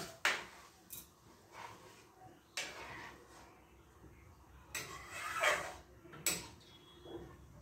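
Steel ladle scraping and clinking against a steel kadai as a thick rajma curry is stirred, in several separate strokes.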